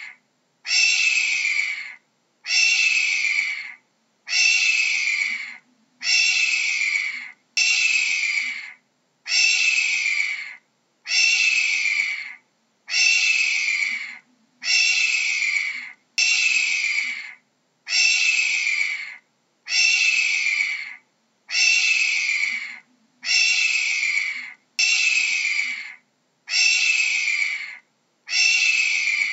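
Hawk screaming over and over: a harsh, hoarse call about a second long, dropping slightly in pitch, repeated roughly every second and a half.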